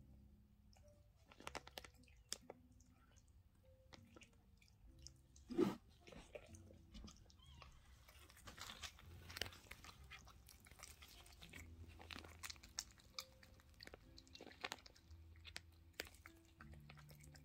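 Yorkshire terrier mother licking and chewing at a newborn puppy's amniotic sac to tear it open: faint, irregular wet smacks and clicks, with one louder thump about five and a half seconds in.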